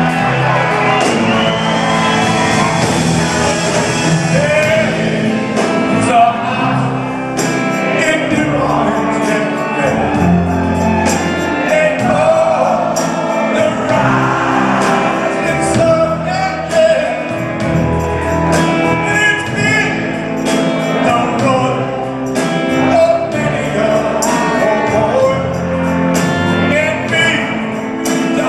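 Live rock band playing with a male lead singer; the drums come in about seven seconds in and keep a steady beat.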